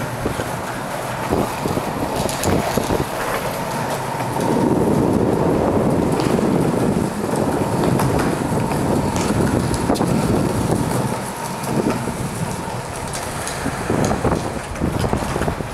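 Longboard wheels rolling over smooth concrete, a steady rumble that swells for several seconds in the middle, with scattered clicks and scuffs from the pushing foot and the board.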